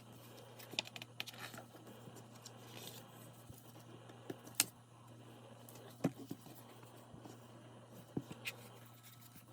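Handling of a CD album package and its paper contents: scattered light clicks, taps and rustles, the sharpest click a little under halfway through, over a steady low hum.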